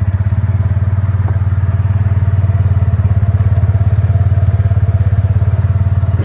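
Side-by-side utility vehicle's engine running steadily, a loud low rumble with an even, rapid firing pulse.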